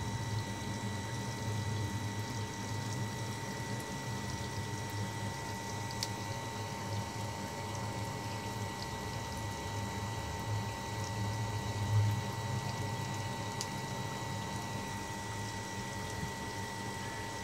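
Dirty water pouring steadily from a drain pipe and splashing onto a tiled floor as a water filter tank is flushed out. A faint steady high tone runs underneath.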